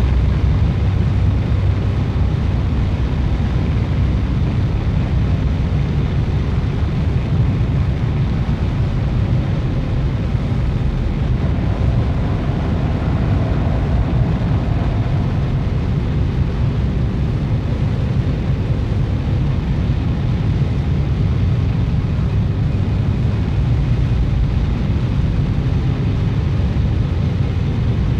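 Experimental noise drone: a dense, steady low rumble with a faint higher hum rising out of it in the middle.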